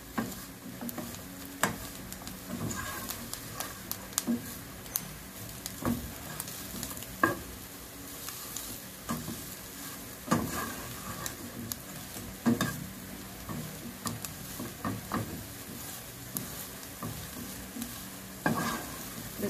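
Plastic spatula stirring and scraping a chicken and cheese filling in a non-stick frying pan, with irregular knocks of the spatula against the pan over a low sizzle. The filling is being mixed over the heat to melt the cheese.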